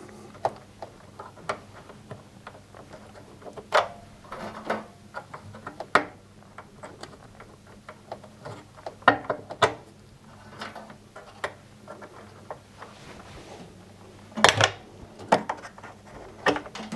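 Irregular small clicks and knocks as the wire connectors are pulled off the washing machine heater's terminals by hand, with a few louder knocks against the machine's metal frame.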